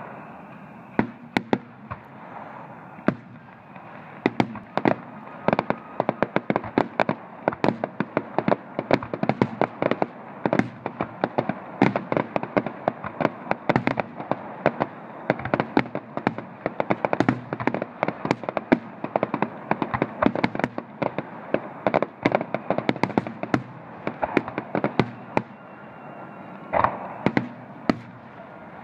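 Fireworks display going off in a rapid barrage: many sharp bangs, often several a second, from aerial shells bursting overhead, over a steady hiss.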